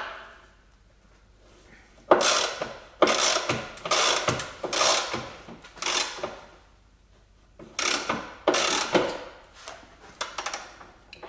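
Socket ratchet clicking through a series of short strokes, about eight of them with brief pauses, starting about two seconds in, as it works on a suspension control-arm bolt.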